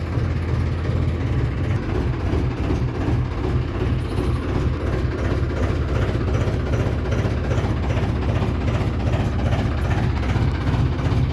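Combine harvester's diesel engine running steadily, a deep continuous drone.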